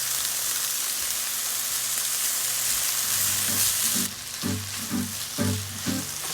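Food sizzling in a frying pan: a steady hiss that thins out about four seconds in. Background music with a low beat comes in over it from about three seconds.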